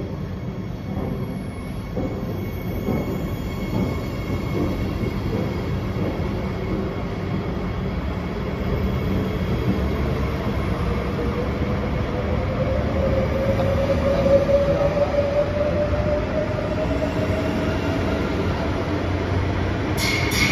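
SBB RABe 502 Bombardier double-deck electric train pulling out along the platform, its wheels and running gear rumbling a little louder over time while its traction motors give a whine that rises in pitch as it picks up speed. A high wheel squeal comes in near the end.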